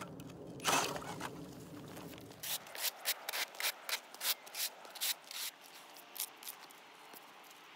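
Hand ice auger grinding and scraping as it is cranked through lake ice, with a loud crunch about a second in. After about two and a half seconds the grinding stops and a quick run of about a dozen short crunches in snow and ice follows, ending a little after six seconds.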